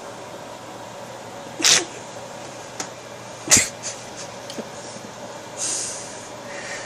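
A few short, sudden noises over a steady background hum: a brief hissy burst about one and a half seconds in, a sharp knock about halfway through, a few small clicks, and a soft hiss near the end.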